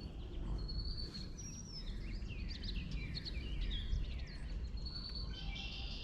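Songbirds singing, with a quick run of high chirps and downward-sweeping notes thickest in the middle, over a steady low background rumble.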